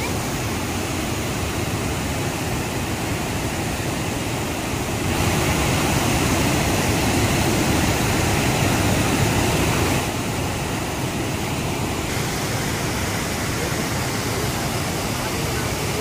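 Rushing water of the Dhuandhar waterfall pouring over rocks: a steady, loud noise that gets louder for about five seconds in the middle.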